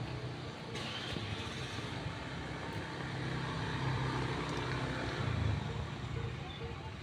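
Low, steady motor-vehicle engine hum, growing louder to a peak about five seconds in and easing off near the end.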